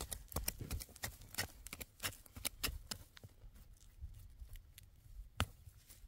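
Hands pulling wild plants from stony soil: a quick run of crisp snaps and rustles as the roots and stems tear free, thinning out after about three and a half seconds, with one sharper snap near the end.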